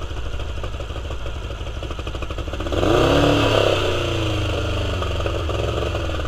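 2001 Mercury 75 four-stroke outboard engine running with its cowling off, revved briefly about three seconds in and then settling back to a steady idle. Its four carburetors have sat with fuel in them for several years, and the owner says they need cleaning again.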